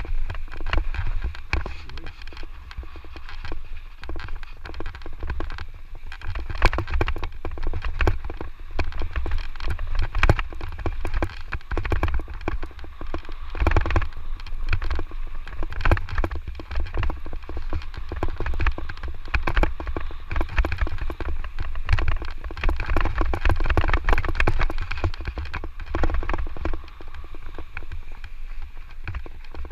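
Electric mountain bike ridden down a rough dirt trail: wind buffeting the microphone as a constant low rumble, tyres on loose, sandy ground, and the bike rattling and clattering over bumps in quick, uneven knocks.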